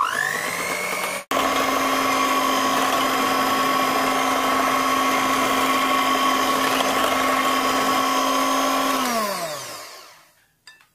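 Electric hand mixer beating a chilled ice cream mix in a glass bowl, the second beating after two hours in the fridge. The motor whines up to speed, breaks off briefly just after a second in, runs steadily, then winds down with falling pitch near the end.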